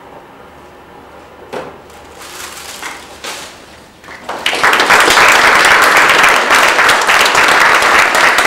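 Audience applauding loudly, starting about four and a half seconds in after a quiet stretch, and carrying on steadily.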